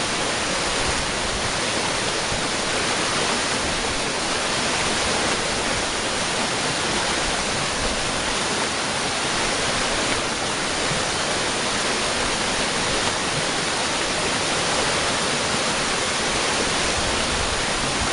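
Waterfall: the steady, even rushing of falling water.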